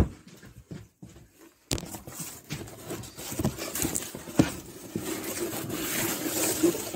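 Cardboard boxes being handled and shifted about: a sharp knock right at the start, then from about two seconds in a dense run of rustling, clattering and knocks.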